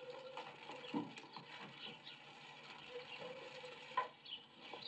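Faint background of small birds chirping, with two soft knocks, about a second in and about four seconds in, heard through a television's speaker.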